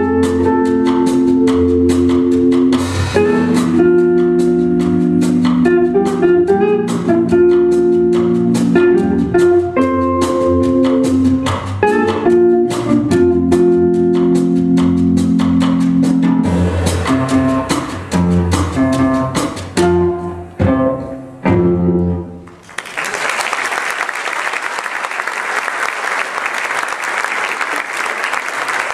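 Jazz organ trio playing live: held organ chords with electric guitar and drum kit, ending with a few accented hits about 22 seconds in. Audience applause follows.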